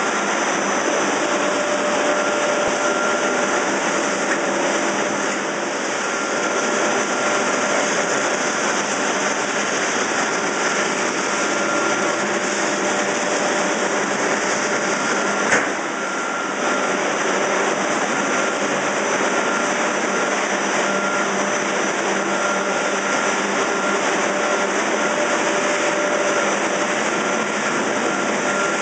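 Fish feed and pet food plant machinery running with a steady mechanical whir and a few constant tones, with one sharp click about halfway through.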